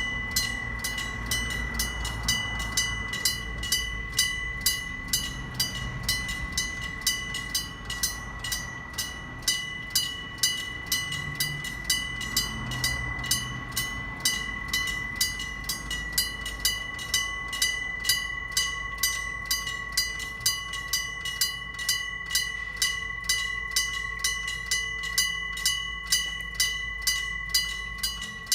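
Electric bells of a Japanese railway level crossing ringing continuously in fast, even strokes. The bells on the two sides of the crossing strike at noticeably different rates, so their strokes run out of step with each other. A low rumble runs underneath.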